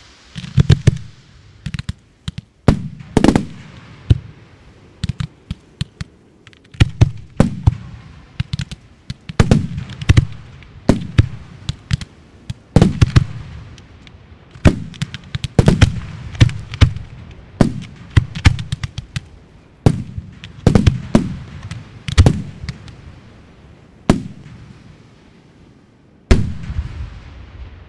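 Fireworks launching and bursting in quick succession, sharp bangs coming every second or so, each trailed by a low rolling echo. Near the end a single large burst stands out, followed by a long fading rumble.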